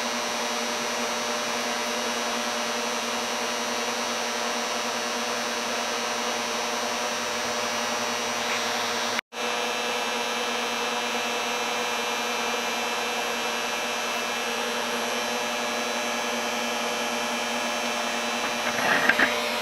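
Homemade induction heater rig running at full power while melting an iron billet: a steady whirring hum of its cooling fan and power electronics, several constant tones over an even hiss. The sound cuts out for an instant about nine seconds in, and a few soft knocks come near the end.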